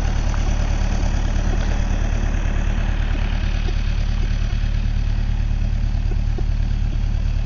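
Diesel engine of a Kubota compact excavator or tractor-loader-backhoe running steadily at a low, even speed.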